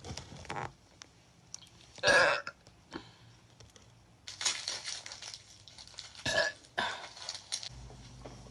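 A young woman burping loudly once, about two seconds in, followed by fainter short noises.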